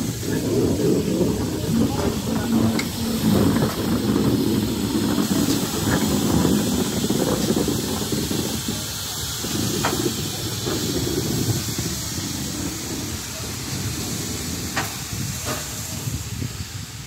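Pannier tank steam locomotive hissing steam as it moves slowly past, with a heavier rush of sound in the first half that eases off later.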